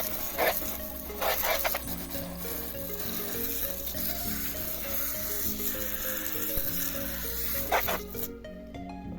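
Water spraying from a hose onto a car wheel rim, a steady hiss with a few louder spurts, cutting off suddenly near the end. Background music plays underneath.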